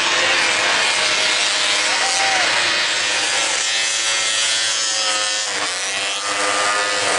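Several small youth 206-class snocross sleds racing together, their engines buzzing at high revs, with pitches rising and falling as the riders work the throttle.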